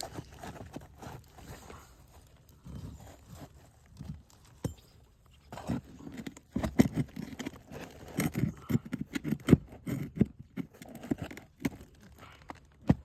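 An asphalt roof shingle being worked loose and pulled out, its nails pried free: irregular scraping, crunching and sharp knocks, sparse at first and busier and louder from about halfway. The shingle is brittle and its nails have eaten through.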